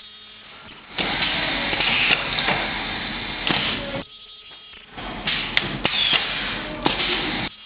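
Automatic turntable ultrasonic plastic welding machine running its cycle: bouts of loud mechanical noise about three seconds long, broken by short quieter pauses.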